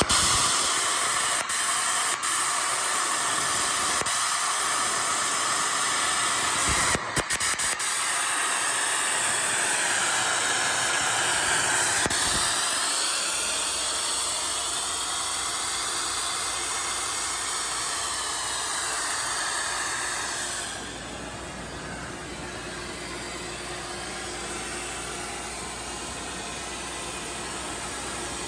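Ingersoll Rand 40 hp rotary screw air compressor running: a steady rush and hiss of air and machinery. About 21 seconds in the sound drops to a noticeably quieter, steadier level.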